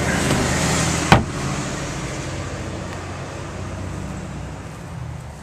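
Low, steady rumble of a passing road vehicle, slowly fading away, with a single sharp knock about a second in.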